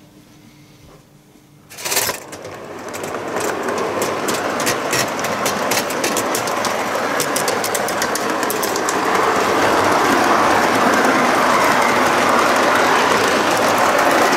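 Model train rolling along metal track, heard from a car riding in the train: a dense rattle of wheels clicking over rail joints. It starts suddenly about two seconds in and grows louder over the next several seconds, then runs steadily.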